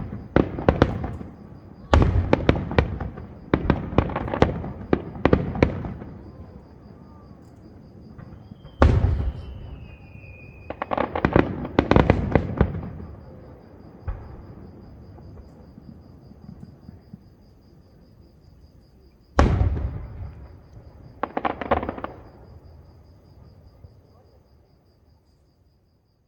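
Aerial fireworks heard from far off: clusters of rapid bangs, each trailing a rumbling echo, with single heavy booms about nine and nineteen seconds in. The bursts die away near the end.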